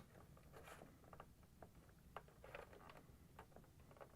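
Faint, scattered light clicks and scraping of a flat-blade screwdriver prying a plastic control knob off a washer's control panel, over near-silent room tone.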